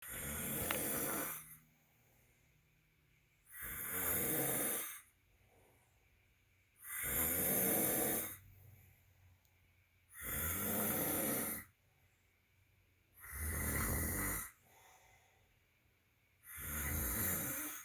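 A man snoring in his sleep: six snores, each lasting about a second and a half, coming evenly about every three seconds with near silence between them.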